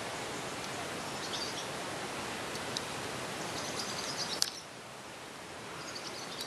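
Garden ambience: a steady outdoor hiss with a few faint, high bird chirps scattered through it. A single sharp click comes about four and a half seconds in, after which the background hiss is a little quieter.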